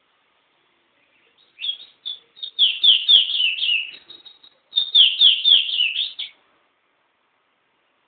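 Small caged songbird singing two phrases, each a quick run of high notes that slide downward in pitch, the first starting about a second and a half in and the second about five seconds in.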